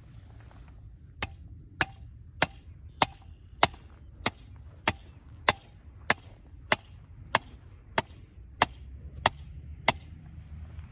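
About fifteen sharp, evenly spaced hammer blows, roughly one and a half a second: a stake being driven into the ground as an anchor for a tree-pulling rope.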